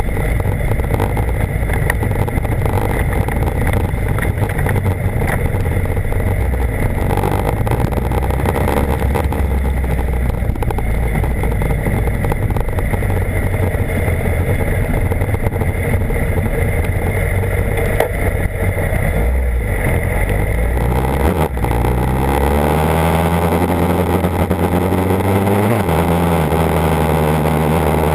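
BMW HP4's inline-four engine running on the move, heard with heavy wind and road noise. About three-quarters of the way through, the engine note rises clearly under acceleration, drops suddenly at a gear change, then climbs again.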